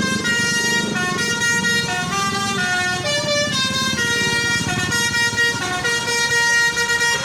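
Bus 'basuri' telolet horn playing a tune: loud held horn notes that step up and down from one pitch to the next about every half second, over a low engine rumble.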